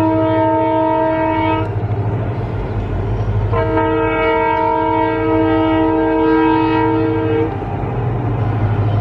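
Twin turbocharged ALCO diesel locomotives sounding their horn: a chord blast that ends about two seconds in, then a longer blast of about four seconds. Under the horn the diesel engines keep up a steady, pulsing low rumble.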